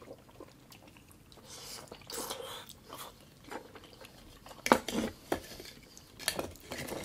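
Mouth sounds of someone chewing raw oyster. A few sharp clicks about two-thirds of the way through come from oyster shells being handled on the platter.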